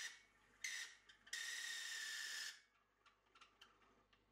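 A bit in the tailstock drill chuck boring into a wooden blank spinning on a wood lathe, giving a very loud, high, steady whine. It comes in two bouts, a short one under a second in and a longer one of about a second, then stops.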